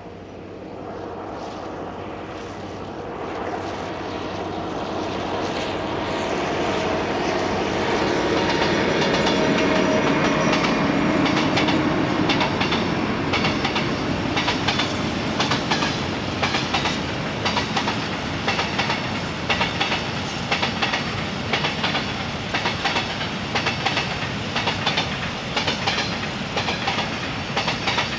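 Diesel-hauled freight train passing: the locomotive's engine grows louder over the first dozen seconds, then a long string of empty flat wagons goes by with a steady rhythmic clickety-clack of wheels over the rail joints.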